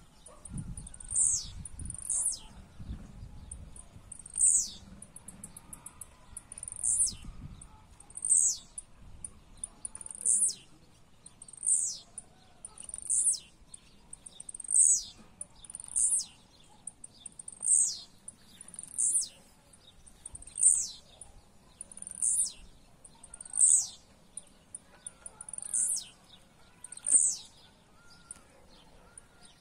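Blue-black grassquits (tiziu) countersinging, a caged male against a wild one: each song is a short, high note sweeping sharply downward, repeated about every one to two seconds.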